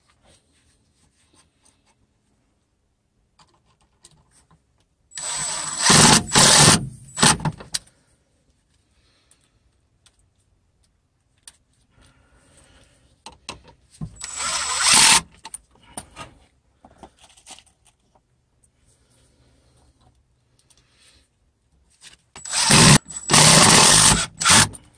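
Cordless drill driving construction screws into a wooden floor post through a metal framing clip: three short runs of the drill, each stuttering on and off, about 5 s, 14 s and 23 s in. Faint handling clicks come between the runs.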